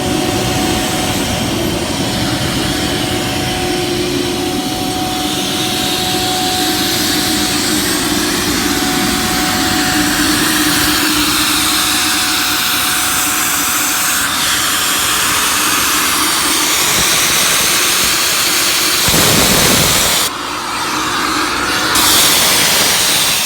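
Ingersoll Rand 40 hp rotary screw air compressor running loaded just after start-up, building pressure: a loud, steady mechanical drone with rushing air and a faint steady whine. About twenty seconds in, the sound briefly dips and then rises again.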